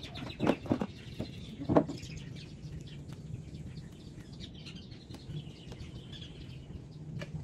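Small birds chirping and calling on and off, with a few loud knocks in the first two seconds over a low steady hum.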